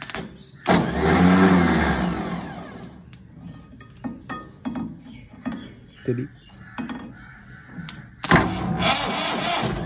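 Mahindra 475 DI tractor's diesel engine revving up and dropping back about a second in. Several quieter seconds with a few light clicks follow, then it revs again near the end.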